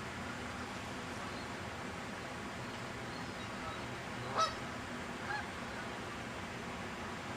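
Waterfowl calling over a steady background hiss: one loud, short honking call about four seconds in, then a fainter call about a second later.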